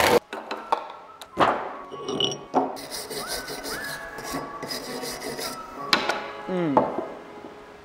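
Hand wire brush scrubbing rust off the metal swivel base plate of an old bench vise, in repeated scratchy strokes, with a few knocks as the parts are handled.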